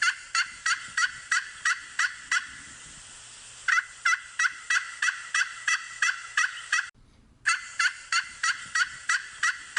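Domestic turkey gobbling: a quick run of repeated falling calls, about three a second, in three bursts with short pauses between them.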